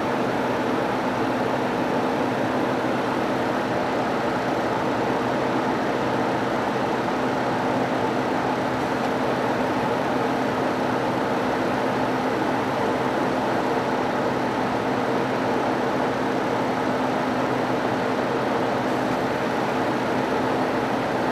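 2016 Ford F-150's 3.5-litre V6 running with the A/C switched on, a steady whir with a few held tones, the system freshly charged with refrigerant and blowing cold.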